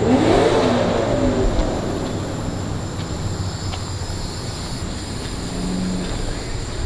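A car engine revving, its pitch rising over about a second, then a steady low engine rumble.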